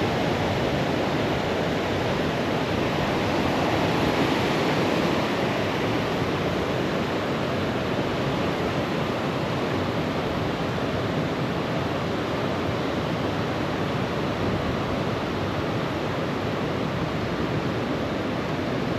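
Steady rush of flowing stream water, an even noise with no breaks.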